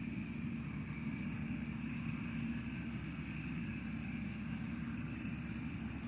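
An engine running steadily at an even speed: a constant low drone with a steady hum in it and a faint higher whine.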